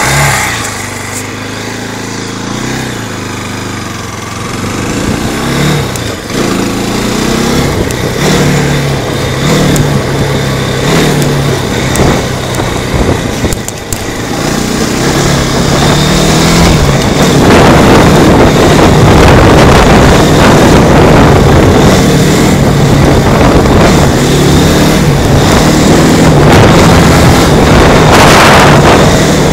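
Trasher 520 quad bike engine under way, its pitch climbing and dropping back again and again as it pulls along. From about 17 seconds in it runs steadily at speed, buried under loud wind buffeting on the microphone.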